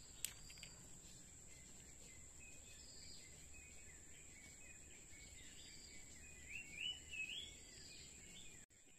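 Riverside rainforest ambience: a steady high insect drone with a bird's short rising chirps, loudest about seven seconds in. There is a sharp click just after the start, and the sound cuts off abruptly shortly before the end.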